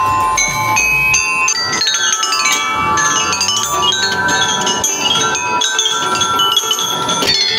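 Metal tubular chimes on a playground frame, struck and swept by hand: ringing notes running down the scale in quick cascades, overlapping as they ring on. For about the first second, the bars of a large outdoor xylophone are struck.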